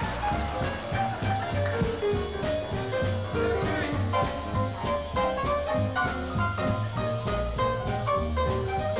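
Live swing-era jazz band playing, with grand piano featured in busy runs over bass and drums keeping a steady beat of about two strokes a second.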